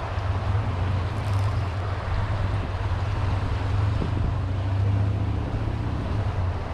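Wind buffeting the microphone: a steady low rumble with an even hiss above it, swelling and easing slightly.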